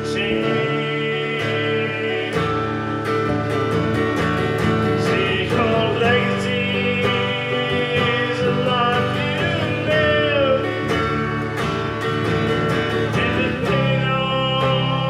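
Live country song on guitar, an instrumental stretch between sung lines, with a melody line that bends in pitch about halfway through.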